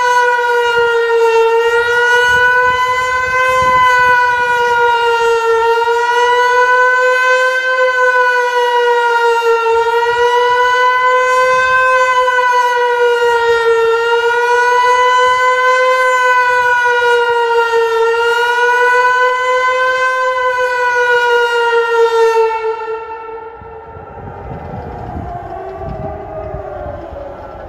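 HLS 273 electronic siren sounding a test alarm: a loud, pitched howl whose pitch slowly swells up and down every few seconds, the German rising-and-falling warning signal. It cuts off suddenly about 23 seconds in, leaving fainter falling tones and a low rumble.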